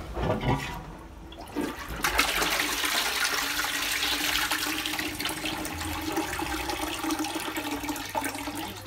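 Japanese squat toilet flushing from its wall push-button: a loud rush of water starts about two seconds in and dies away near the end, with a steady hum under it.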